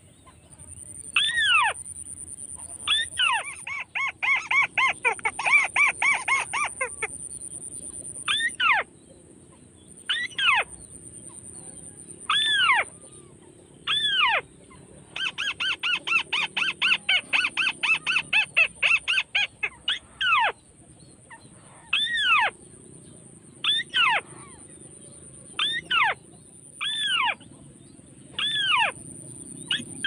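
White-browed crake calls used as a lure: loud single arching notes about every two seconds, broken twice by long runs of rapid chattering. A faint steady high whine runs underneath.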